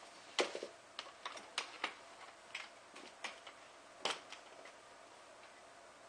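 Scissors snipping through an evaporative cooling pad and window screen: a quick, irregular series of sharp snips and clicks, the loudest just after the start and about four seconds in, thinning out near the end.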